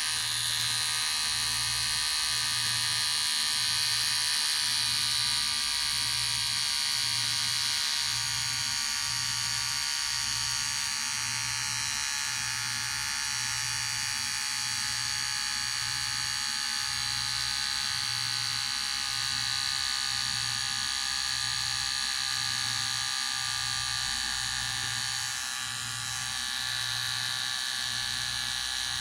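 Electric hair clipper running steadily: a continuous buzz with a high whine, and a low hum underneath that pulses about once a second.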